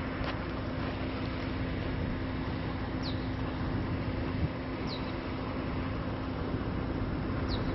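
Steady outdoor background noise with a low, steady hum, and a few short, high, falling chirps about three, five and seven and a half seconds in.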